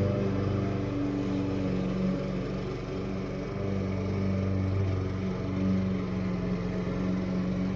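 Small engine of a lawn mower or weed trimmer running steadily at an even speed.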